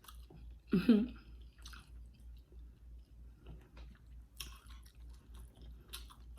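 Close-miked chewing of a mouthful of seafood gumbo: soft, wet mouth clicks and smacks, with a short hum of the voice about a second in.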